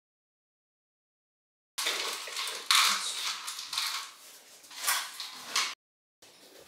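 Spoons and fingers clinking and clattering against glass parfait cups and small bowls as fruit and toppings are put in. It starts abruptly after nearly two seconds of dead silence and cuts off just as suddenly near the end, with a couple of louder clinks in between.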